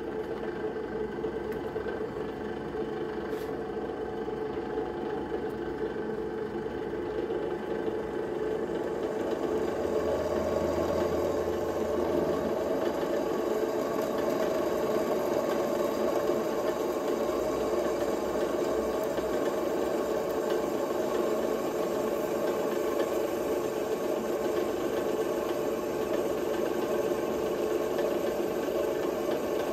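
Metal Master M32D floor-standing drill press running under load as an 8 mm twist drill bores into a 10 mm thick metal plate clamped in its vise. A steady motor and spindle hum that grows louder from about eight seconds in and then holds level.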